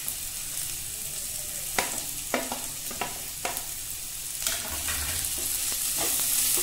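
Sliced onion and bell pepper strips sizzling in hot oil in a nonstick wok, with a few sharp knocks in the middle. Near the end a wooden spatula starts stirring the vegetables and the sizzle grows louder.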